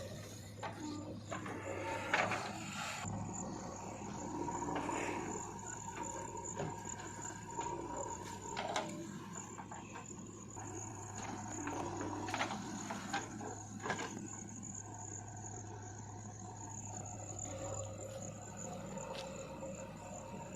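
Heavy diesel earthmoving machinery running steadily, a low engine hum with a thin steady high tone above it. A few short knocks and clanks come through, notably about two, nine and fourteen seconds in.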